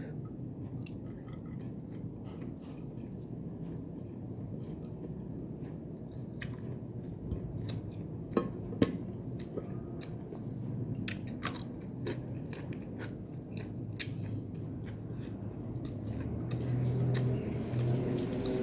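A person chewing and biting food close to the microphone, with frequent small wet mouth clicks and two louder clicks about halfway through.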